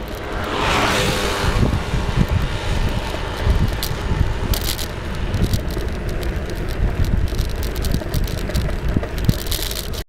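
Wind noise on the microphone of a camera moving along a road, over a steady low rumble of road noise. A louder rushing swell comes about a second in.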